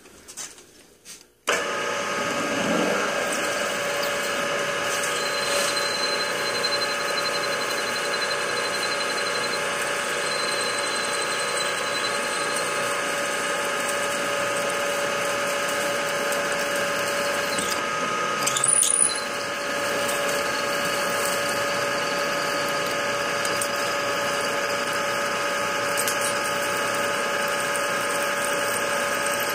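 Precision Matthews PM-932M milling machine's spindle starting up suddenly about a second and a half in, then running steadily with a held whine while a 3/8-inch drill bit bores into an aluminium wheel. A brief high squeal rises about two-thirds of the way through.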